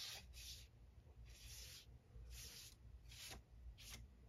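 Large hake brush swept across watercolour paper in short dry-brush strokes: a faint scratchy swish, about six strokes.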